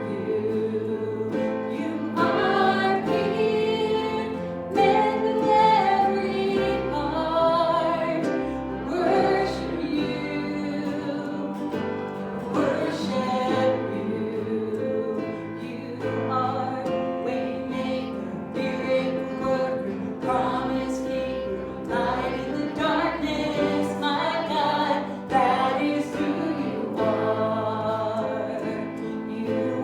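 Live worship music: voices singing over a band, with long-held bass notes underneath.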